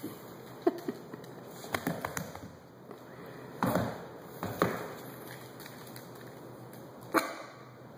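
Scattered taps and knocks from a Yorkshire terrier's claws and feet on a hardwood floor as it scampers about. They come in clusters around two and four seconds in, with one more near the end.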